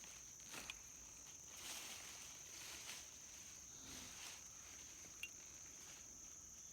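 Faint, steady high-pitched insect trill running throughout, with a few soft scraping sounds about a second apart, as of digging in soil.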